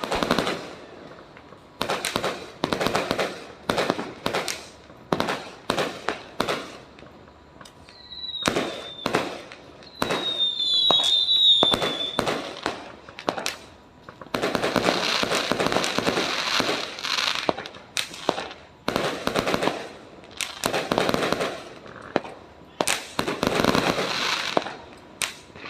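Fireworks going off: repeated sharp bangs mixed with long stretches of dense crackling, and a few high whistles from about a third of the way in.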